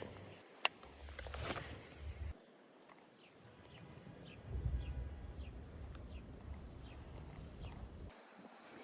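Outdoor ambience: a steady high insect buzz with a row of faint short chirps, and low wind rumble on the microphone that comes and goes. A single sharp click sounds about half a second in.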